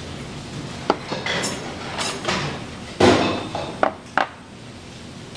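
Tableware clattering: utensils clinking and knocking against dishes in a handful of sharp strikes, the loudest about three seconds in.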